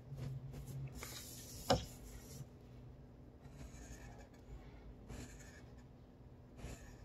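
Fine-point Sharpie marker drawing on paper: several short strokes of the felt tip across the sheet, with one sharp tap a little under two seconds in.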